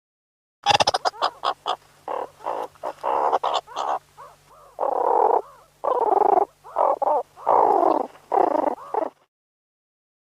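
Meerkat calls: a quick string of short calls, then longer calls of about half a second each, stopping about nine seconds in.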